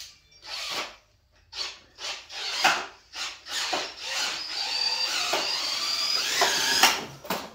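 Cordless drill driving the wheels of a homemade drill-powered wooden cart: a few short bursts on the trigger, then a steady run of about three seconds with a whine, stopping suddenly near the end. The prototype is moving under a rider's weight and working.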